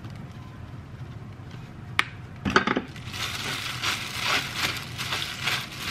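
A hand in a thin plastic disposable glove rubs seasoning into raw meat strips on a plastic cutting board: irregular crinkling of the glove and squishing of the meat. Before that, about two seconds in, there is a sharp click and then a knock.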